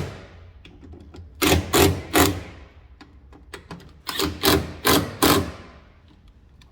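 Sharp knocks in two quick runs, three and then four, each about a third of a second apart, while parts of a car door latch and its trim are being fastened back in place.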